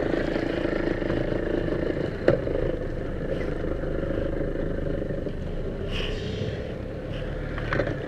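Outboard motor of a small boat running steadily nearby, with a sharp knock about two seconds in.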